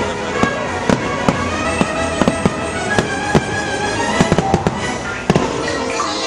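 Fireworks shells bursting in a rapid string of sharp bangs, sometimes several a second. Under them, the show's music plays over loudspeakers.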